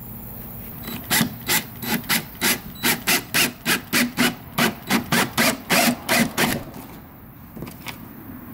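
Cordless drill with a 3/4-inch spade bit boring through the kayak's plastic deck: a run of rhythmic rasping scrapes, about three a second, that stops about six and a half seconds in.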